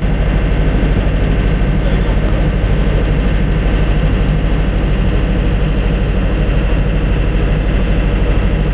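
Machinery of a mobile water-treatment plant running with a loud, steady, low hum, cutting in abruptly at the start.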